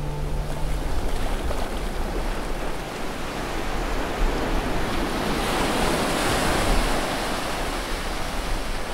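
Surf washing onto a sandy beach, with wind rumbling on the microphone. A wave breaks and the wash swells louder about five to seven seconds in, then eases.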